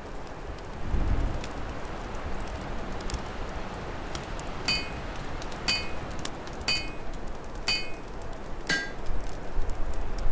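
Open fire crackling in a fireplace, with winter wind rumbling in low gusts about a second in and again near the end. Midway, five short ringing metallic strikes come about a second apart.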